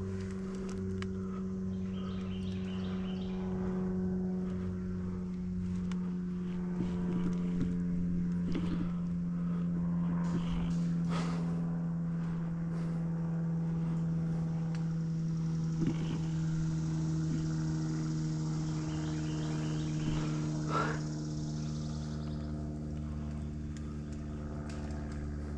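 A steady low mechanical hum, like an engine or motor running, that sinks slowly and slightly in pitch, with scattered faint clicks and rustles.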